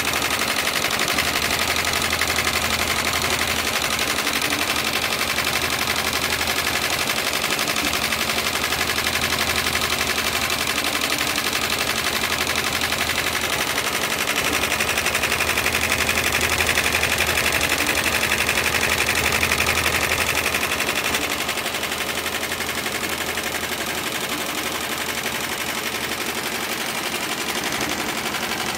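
JUKI PLK-G2008H computer-controlled pattern sewing machine stitching heavy webbing for a sling, its needle cycling in a fast, even, rapid-fire clatter. It runs a little quieter in the last third.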